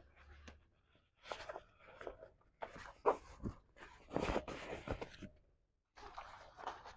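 Canvas of a camper annex being pulled and tucked by hand: irregular rustling and scraping, with a brief silence about five and a half seconds in.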